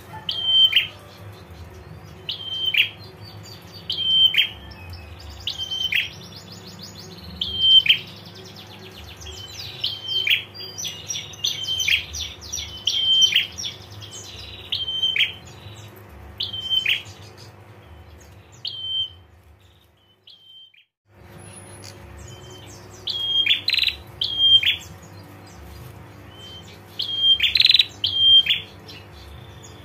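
Prenjak bird calls: a short, sharp note with a quick falling tail, repeated about every one and a half seconds, with a rapid dry rattling trill running alongside from about nine to fifteen seconds in. The sound drops out for a moment about two-thirds through, then the calls resume, louder near the end, over a steady low hum.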